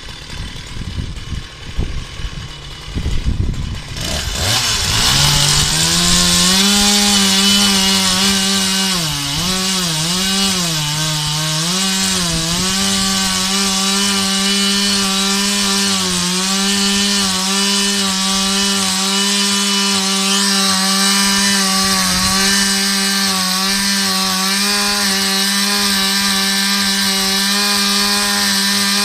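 Freshly rebuilt Husqvarna 365 two-stroke chainsaw running: about four seconds in, its engine note climbs to a high, steady pitch. The pitch dips and recovers a few times before settling into an even, sustained run.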